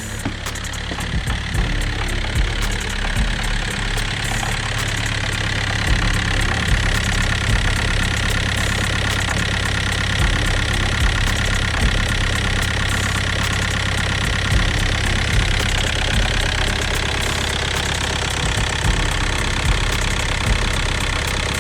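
Car engine idling steadily, with a fast, even clatter over its low running note.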